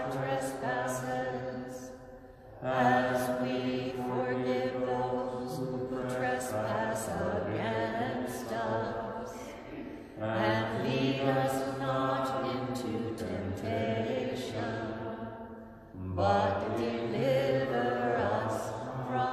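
Sung liturgical chant, voices singing in long held phrases of several seconds each, with brief breaks between the phrases.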